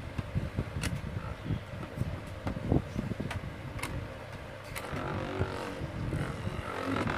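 A toy spinning top whirring and rattling as it spins across a plastic stadium floor, with a marker pen tip pressed against its spinning face, and scattered sharp clicks and knocks throughout.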